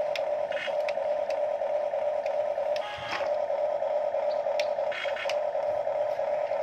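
Electric gear motors of a Huina radio-controlled excavator whirring steadily as its boom and bucket move, with light clicks and a few short higher-pitched whines as the motors change.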